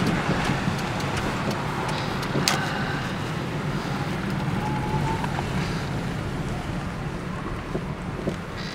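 Steady motor vehicle engine and road noise with a few faint clicks.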